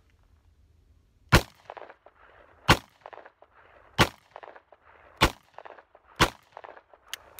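Five shots from a Taurus Tracker .44 Magnum revolver, fired one at a time a little over a second apart, each sharp crack followed by a short echo.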